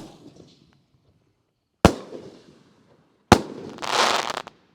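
6-inch double-break canister firework shells bursting: two sharp bangs about a second and a half apart, followed near the end by a second-long rush of hissing noise from the burst effect.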